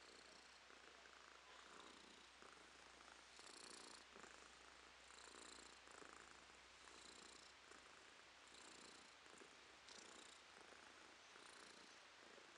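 Domestic cat purring faintly and steadily, swelling and fading in a slow rhythm about every second and a half.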